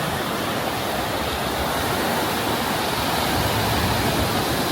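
Ocean surf: a steady rush of waves washing on the beach.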